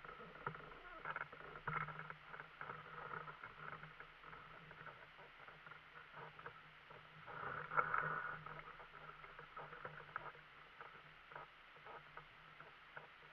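Light irregular clicks, knocks and rustling of a person shifting in the seat of a parked microlight trike and climbing out, with a denser burst of knocking about eight seconds in. A faint steady low hum runs underneath.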